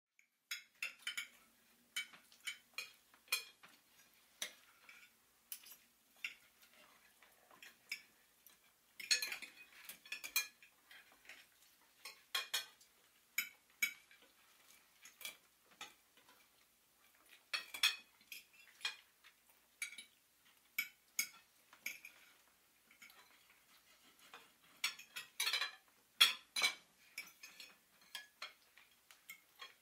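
Scattered sharp clicks and clinks at irregular intervals, some bunched in quick clusters.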